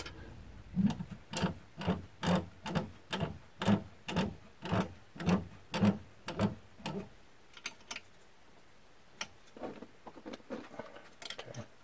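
Hex key clicking in the socket-head screws of an aluminium CNC spindle mount as they are tightened. A regular run of sharp metal ticks, about two a second, then after about seven seconds a few scattered ticks.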